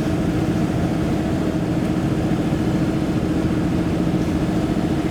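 Warn PowerPlant winch on a Jeep running steadily under load, pulling a heavy downed tree, over the vehicle's engine; an even, unchanging hum.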